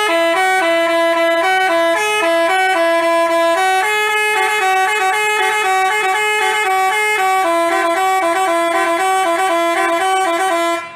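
Basuri telolet bus horn playing a tune: a continuous string of horn notes stepping quickly between pitches, cutting off just before the end.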